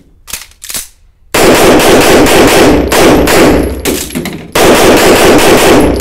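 Semi-automatic pistol being loaded and fired in rapid strings on an indoor range. A few light handling clicks come in the first second as the pistol and magazine are taken up from the table. Then come fast, loud, echoing shots from about a second and a half in, a brief break about four and a half seconds in, and rapid fire again.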